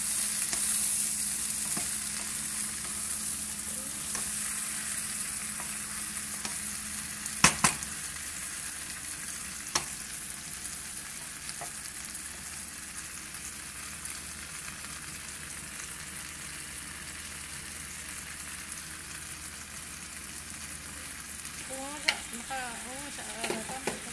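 Shrimp sizzling in butter in a frying pan, stirred with a wooden spatula at first; the sizzle is steady and slowly eases off. A few sharp knocks cut through it, the loudest a double knock about seven and a half seconds in.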